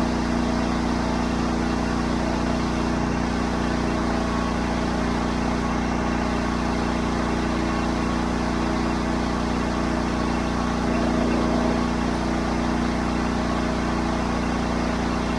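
Honda IGX800 V-twin engine on a trailer-mounted pressure washer running steadily under load while the surface cleaner sprays, with no dip or stumble in its note. The owner had the engine under test for bogging down under load, which it does not do here.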